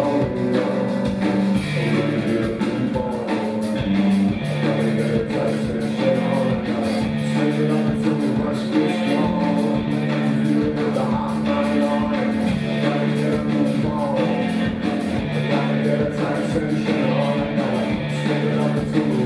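A rock band playing live: a repeating bass line that steps between two low notes, a steady drum beat and guitar.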